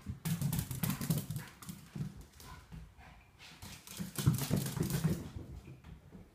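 Two small dogs play-fighting, making dog noises in two bursts of about a second and a half each; the second burst is louder.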